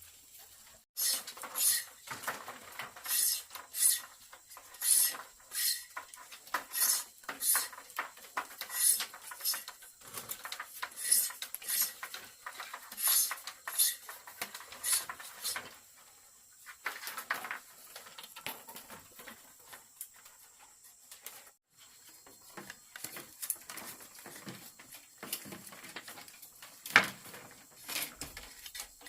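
A run of sharp, clinking strikes, about one a second, for roughly fifteen seconds. Scattered quieter knocks follow, then one loud strike near the end.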